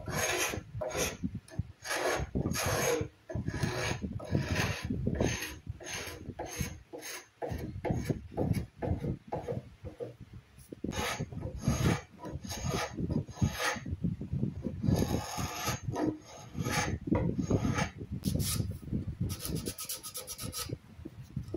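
Carbide scraper drawn again and again along a wooden cabinet frame, rasping strokes about one to two a second as it scrapes off the old finish. Near the end the strokes turn quicker and lighter.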